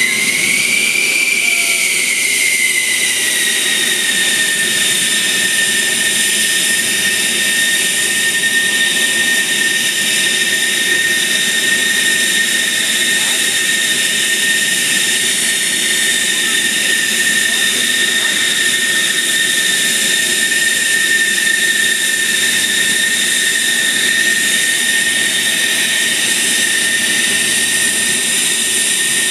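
F-16's single turbofan engine running at idle on the ground: a loud, steady high-pitched whine over a jet rush. The whine rises slightly in pitch about a second in and settles back within a few seconds.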